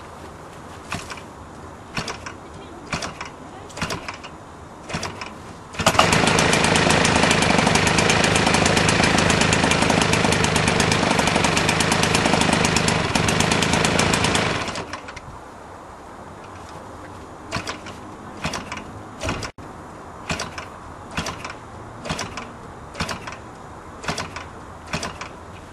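Brand-new Zenoah G62 62 cc two-stroke single-cylinder model-aircraft gasoline engine with a 23x8 wooden propeller, being started by flipping the prop by hand: a series of sharp knocks about a second apart, then it catches about six seconds in and runs loud and steady for about nine seconds before dying away, followed by more hand flips. The engine is being run in and is hard to start by hand.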